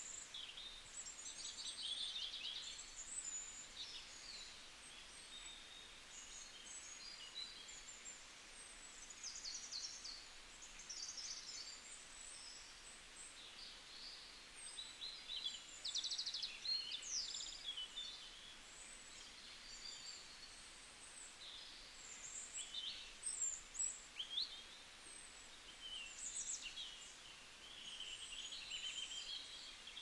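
Birds chirping and trilling: many short, high calls overlapping throughout, fairly faint over a soft hiss.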